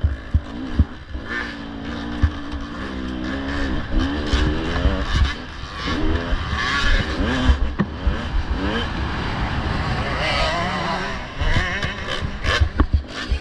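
Off-road dirt bike engine revving up and down over and over, its pitch climbing and dropping as the rider works the throttle, with irregular low knocks and rumble throughout.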